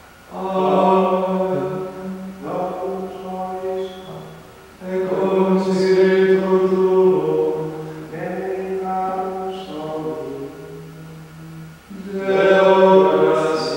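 Choir of monks' male voices chanting together in unison, in phrases held mostly on one note and dropping at each close, with short pauses between phrases.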